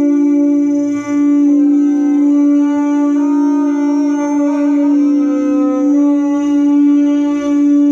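A sustained droning note held at one steady pitch while its upper overtones shift up and down, breaking off briefly about a second in and again near the end.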